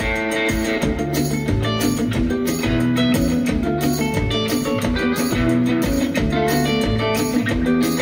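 Guitar-led rock music with a steady drum beat, played through a vintage Tesla loudspeaker box damped with cotton wadding.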